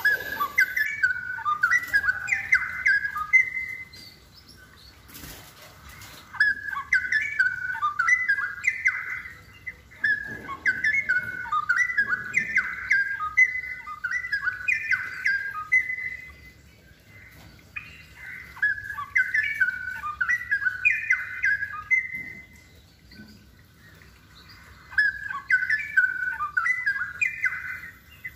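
Straw-headed bulbul (cucak rowo) singing in full voice: fast, warbled phrases of a few seconds each, repeated about five times with short pauses between. A brief click sounds about five seconds in.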